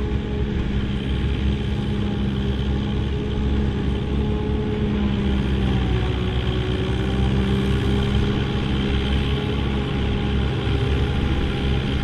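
Ford 5000's four-cylinder engine pulling steadily under load as it drives a one-row Pöttinger forage harvester chopping corn for silage, with the harvester's cutter and blower running and a second tractor running alongside. The engine note dips slightly about six seconds in, then recovers.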